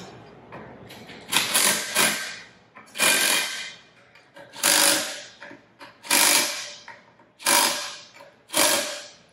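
Cordless power driver running down the bolts of an aluminium diaphragm pump's liquid chamber, in about six short bursts roughly a second and a half apart.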